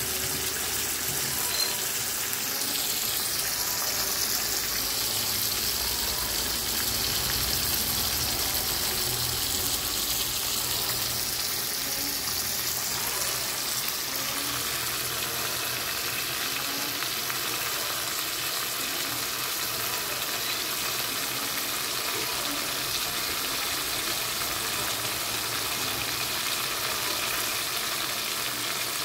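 Beef steaks marinated in mustard and seasonings sizzling steadily as they fry in oil in a nonstick pan.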